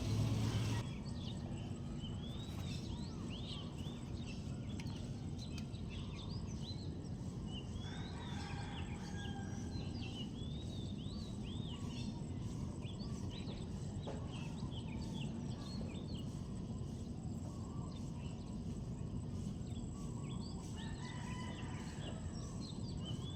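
Many short bird chirps throughout, over a steady low background rumble.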